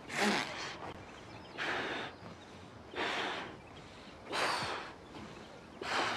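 A man blowing up a balloon by mouth, taking five loud, gasping breaths about one every second and a half.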